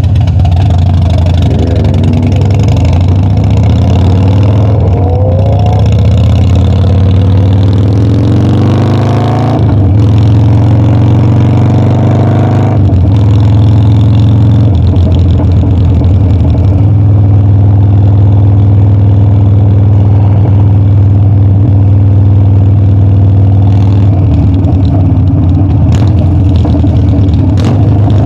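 Harley-Davidson Dyna's V-twin engine pulling up through the gears. The pitch climbs, drops at gear changes about ten and thirteen seconds in, then holds steady at cruising speed.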